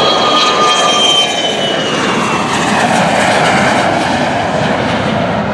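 Jet airplane passing close by under power, a loud roar with a high turbine whine that slides down in pitch over the first few seconds as it goes past.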